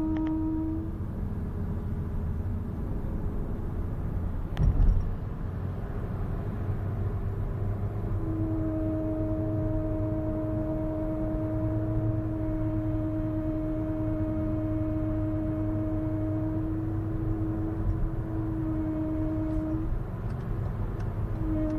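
Steady pitched whine from the left front wheel of an eighth-generation Honda Civic 1.8 while driving, over road rumble; the whine drops out about a second in, comes back after about eight seconds, and breaks off briefly near the end. A single thump sounds about five seconds in. The noise appears only after a longer drive and stops when the brakes are pressed.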